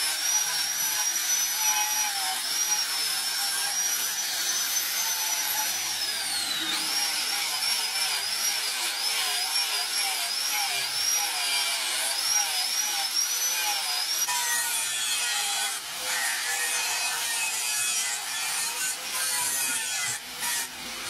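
Angle grinder running with its abrasive disc pressed against the steel blade of a knife made from a broken brake disc. Its high whine holds steady at first, then wavers up and down over and over from about a third of the way in. After about two thirds it gives way to a rougher grinding noise.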